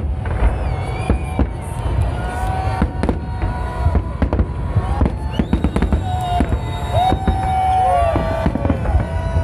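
Firework shells bursting in quick, irregular succession in a large salute display, with high whistling tones holding and gliding over the bangs.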